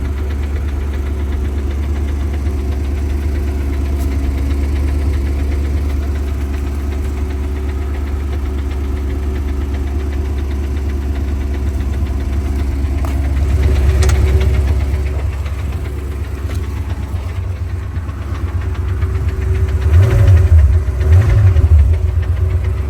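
Porsche 928's V8 running at idle with a repetitive clicking that the owner traces to the transmission; the click goes away when the clutch is held down and in some gears. The level swells briefly about 14 seconds in, then surges twice near the end.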